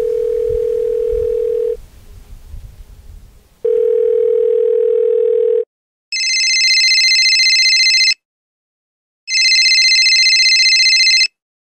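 A telephone line tone: a steady single beep held for about two seconds, twice. Then a telephone rings with a high, trilling electronic ring, two rings of about two seconds each.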